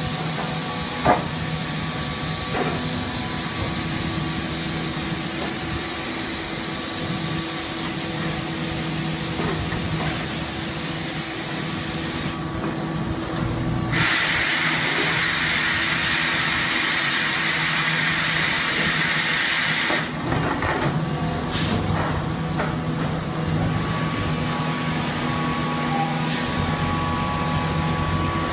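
Hydraulic wet-mix concrete kerbstone press running: a steady hiss over a low machine hum, with a single click about a second in. A louder rush of hiss runs for about six seconds midway, then cuts off suddenly.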